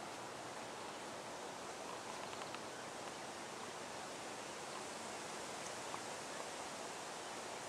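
Steady outdoor background hiss by a pond, with a few faint short sounds around the middle.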